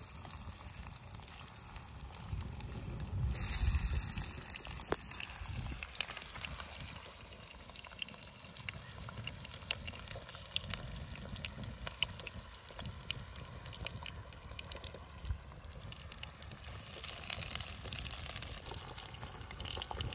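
Chicken pieces frying in hot oil in a karahi: a steady sizzle with scattered pops and crackles, swelling louder for about a second some three and a half seconds in, over a low rumble.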